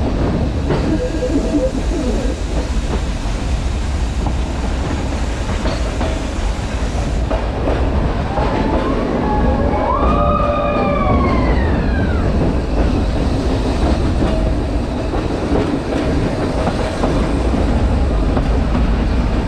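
Nilgiri Mountain Railway train running, with a steady rumble and clatter of the carriages on the track. A brief high squeal rises and falls in pitch about halfway through.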